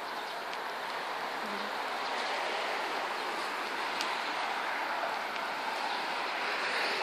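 Steady outdoor street ambience: an even hiss of traffic on the road, swelling slightly over the first couple of seconds.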